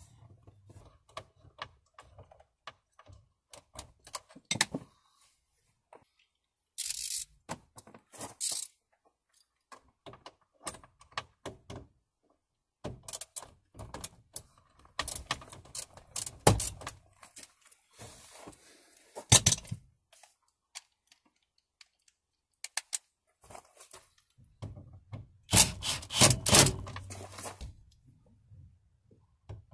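Scattered clicks, taps and knocks of tools and parts being handled at a car's steering wheel hub, with a few short rattling bursts. The loudest burst, about two seconds long near the end, is a cordless drill driving the steering wheel's centre bolt down.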